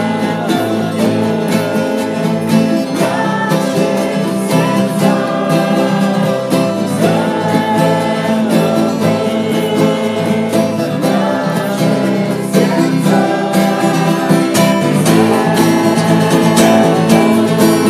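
Strummed acoustic guitar with several voices singing a repeated refrain loudly.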